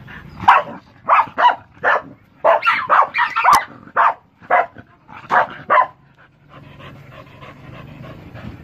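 Dog barking in a rapid string of about a dozen sharp barks that stop about six seconds in, with one sharp click among them.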